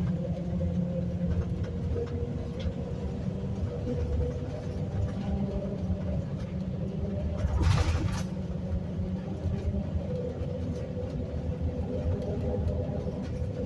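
Steady road and engine noise heard from inside a vehicle driving across a long bridge: a low rumble with a constant hum. There is a brief, louder rush about halfway through.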